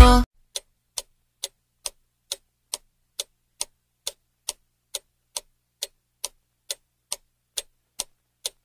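Clock-ticking sound effect, sharp evenly spaced ticks about two a second, counting down the time to guess. A song cuts off abruptly just at the start.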